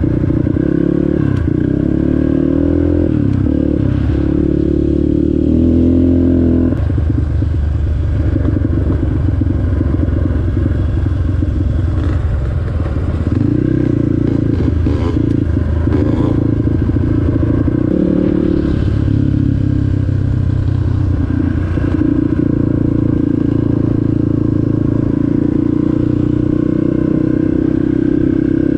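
Off-road vehicle engine running under way, its pitch rising and falling several times as the throttle and gears change, with some rattling.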